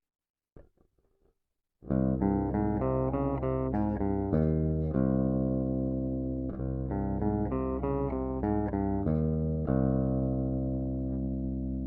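Guitar plugged directly into a Zoom H4n Pro recorder's input with no DI box, playing a quick run of picked notes that ends on a held, ringing chord, twice over. A few faint clicks come just before the playing starts.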